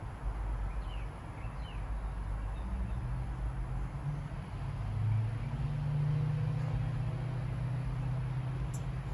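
A low, steady motor hum with a rumble underneath, getting louder about halfway through, and a single sharp click near the end.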